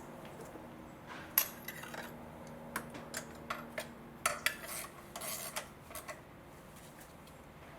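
Irregular sharp metal clinks and short scrapes of a small ratchet and spark plug socket being set onto and worked on a spark plug, bunched between about one and six seconds in.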